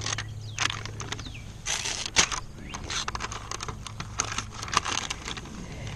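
Protective paper being peeled off a new plexiglass window pane: a run of irregular crackles and rustling as the paper lifts away.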